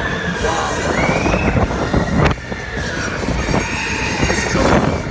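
Fairground thrill ride running at speed: a loud, constant rumble and rattle of the machinery and rushing air, with two long high squeals that rise and fall.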